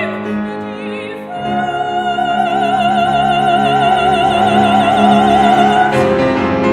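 Soprano voice singing with piano accompaniment. About a second in she takes up a long, high held note with a wide vibrato, which ends shortly before the close while the piano carries on.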